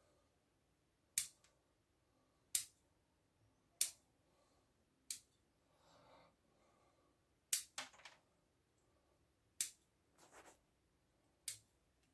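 Steel bonsai scissors snipping the twig tips of a small field elm bonsai: eight sharp snips, one every second or two, two of them close together about halfway through, with a couple of faint rustles of twigs in between.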